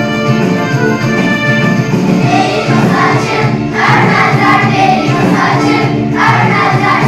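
A class of children singing a Turkish folk song in unison over instrumental backing music; the instrumental introduction gives way to the singing about two seconds in.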